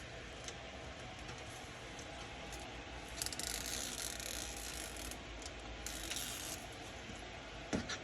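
Hands working an adhesive LED light strip onto the back of a TV: two spells of rustling and scraping in the middle, then a single light knock near the end.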